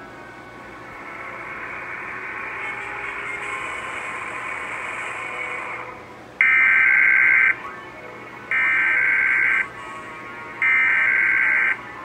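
Quiet TV program sound, then three loud bursts of Emergency Alert System SAME header data tones from the TV speaker, each about a second long with about a second between them, starting about six seconds in: the digital header that opens a Required Weekly Test.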